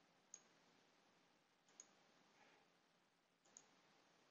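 Three faint computer mouse clicks, spaced about one and a half seconds apart, over near silence.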